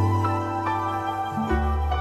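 Instrumental karaoke backing music: held melody notes over a steady bass that changes note about a second and a half in, with no singing.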